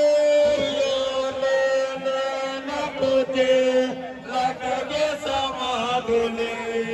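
Assiko music: a voice or voices chanting in long held notes that step slightly lower in pitch, with a few percussion strokes in the middle.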